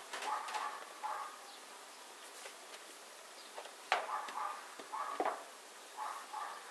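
Honeybees buzzing intermittently around open hives. Two sharp wooden knocks, about four and five seconds in, come from hive bottom boards being handled.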